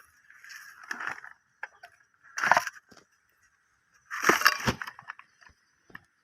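Handling noises: three bursts of scraping and clattering about a second, two and a half and four and a half seconds in, with a few sharp clicks between them, over a faint steady high hum.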